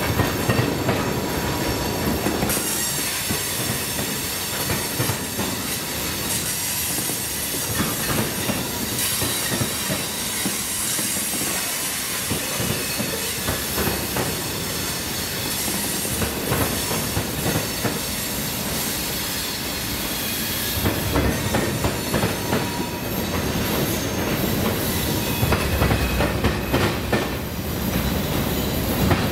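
CSX freight train cars rolling slowly past, steel wheels knocking unevenly over the rail joints, with a thin high-pitched wheel squeal.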